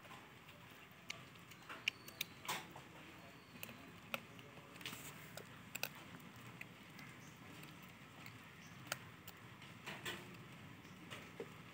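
Faint, irregular crunching and clicking as a gray langur takes roasted chickpeas from a hand and chews them.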